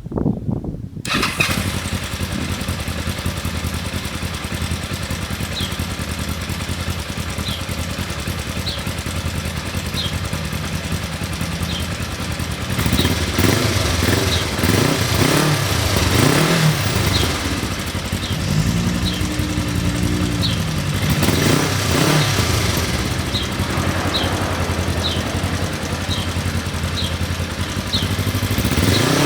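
Kawasaki ER-5's parallel-twin engine through its stock exhaust, coming to life about a second in and idling steadily, then revved several times from about 13 seconds on, the pitch rising and falling with each blip of the throttle.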